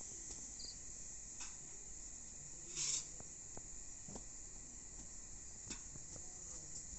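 Crickets chirping steadily in a high, even hum, with a short burst of noise just before three seconds in and a few faint clicks.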